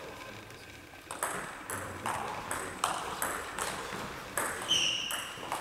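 Table tennis rally: a plastic ball clicking off the bats and bouncing on the table, starting about a second in with the serve and going on at a quick, uneven pace of roughly two hits a second. A short high squeak comes near the end.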